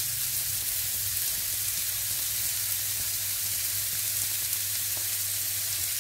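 Chopped onion and garlic sizzling steadily in hot olive oil in a nonstick frying pan, just added so they soften slowly over moderate heat. A low steady hum runs underneath.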